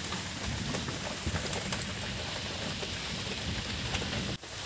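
A kadai full of nimki dough strips frying in hot oil: a steady crackling sizzle, dipping briefly near the end.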